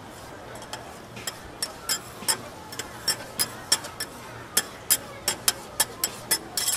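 Metal spatulas clacking and scraping on a flat steel teppan griddle while seafood and onions are stir-fried in sauce. There are sharp clacks about three times a second, coming closer together in the second half.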